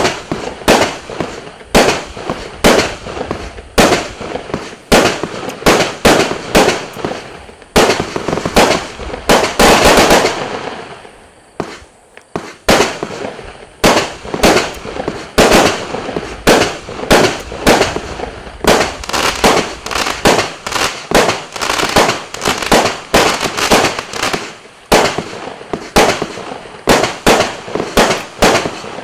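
A 256-shot compound fireworks cake firing, a steady run of sharp shots at about two a second. About a third of the way in the bursts crowd together into a dense run, followed by a short lull before the shots resume.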